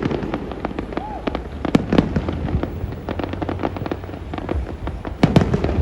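Fireworks display: a dense crackle of many small pops, with louder bangs about two seconds in and again near the end.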